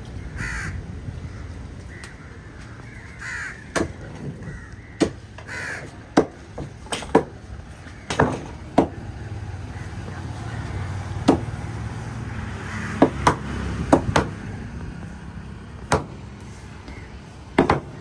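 Irregular sharp chops of a heavy cleaver cutting through fish onto a wooden log-section chopping block. Harsh bird caws sound a few times in the first half.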